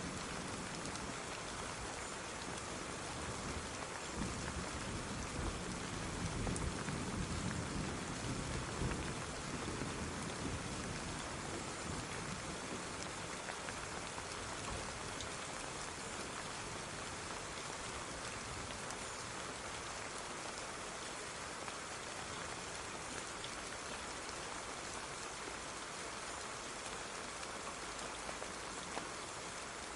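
Steady soft rain falling, an even hiss of drops on a surface. A low rumble of thunder swells up about five seconds in and fades away by about ten seconds.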